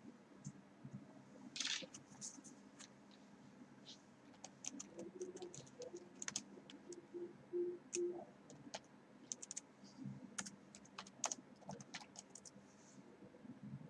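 Faint, irregular clicking and tapping over a low steady hum.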